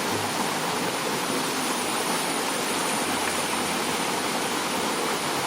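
Small waterfall, a steady rush of falling water that cuts off suddenly at the end.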